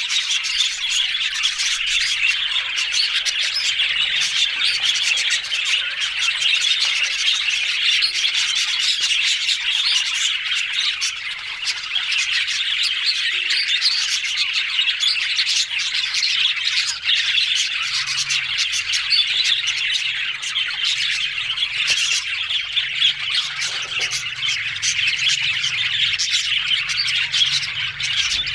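Budgerigars chattering and chirping without pause, a dense, steady warbling chatter with squawks mixed in.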